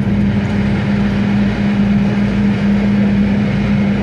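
Ventilation fans running: a steady low hum over an even rush of air.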